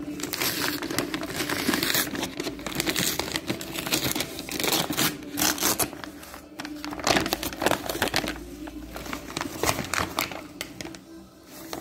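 Packaging being handled and torn open: continuous crinkling and rustling with many sharp, irregular crackles and rips.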